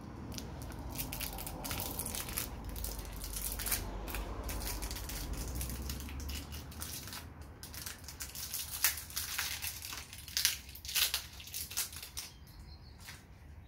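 Gloved hands handling a new 16 mm milling collet and its wrapping: irregular crinkling with scattered small sharp clicks.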